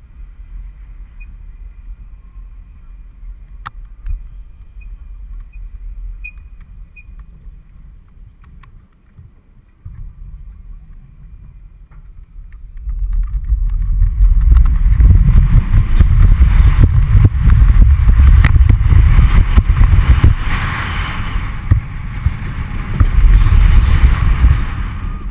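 The Smiler roller coaster train climbing its chain lift hill with a low rumble and a few faint clicks. About 13 seconds in it crests and drops, and loud wind on the on-ride camera's microphone and the rattling roar of wheels on steel track take over.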